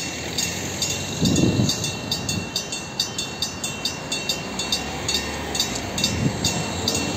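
Level-crossing warning bell ringing in quick, regular strokes over a steady high tone, as a passenger train approaches the crossing with a low rumble that grows near the end.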